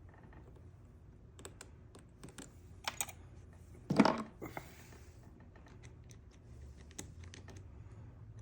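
Scattered small clicks and taps of small metal lock parts and a tool being handled in a disassembled ignition lock cylinder. A sharper knock comes about four seconds in.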